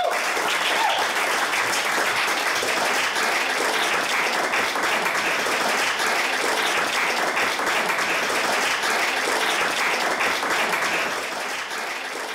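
Comedy club audience applauding at the end of a stand-up set, a dense steady clapping that starts to fade near the end.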